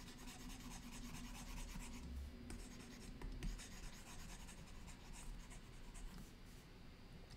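Faint scratching and tapping of a stylus on a tablet screen as lines are scribbled, many short strokes.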